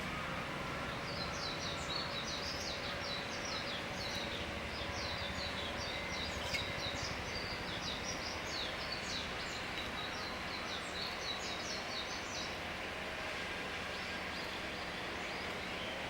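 A small bird's fast series of short, high chirps, many a second, lasting about eleven seconds before stopping, over a steady outdoor background noise with a faint steady hum.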